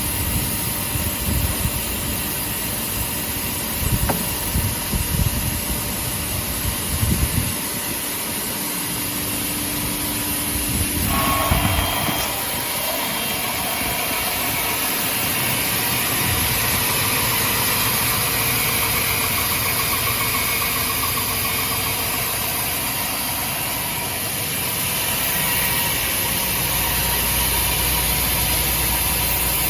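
MJ3971Bx400×2 heavy double-head horizontal band saw running, a steady machine noise with hiss. Irregular low knocks come over the first several seconds, and about eleven seconds in the sound turns brighter and harsher and stays steady.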